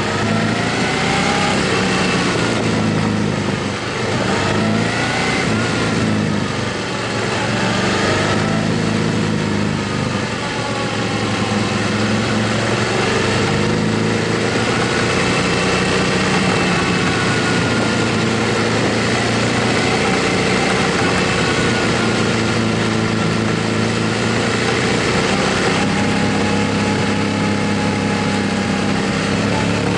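Motorcycle engine running while riding, its pitch rising and falling gently with the throttle, over a steady rush of wind noise.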